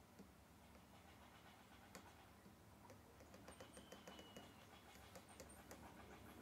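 Near silence, with faint light taps of an Apple Pencil tip on the iPad's glass screen, clustered in the second half.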